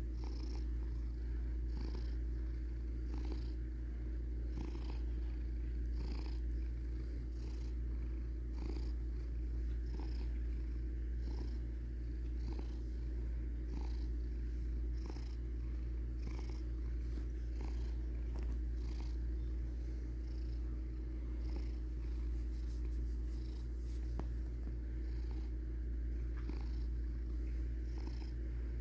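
Domestic cat purring steadily while being petted.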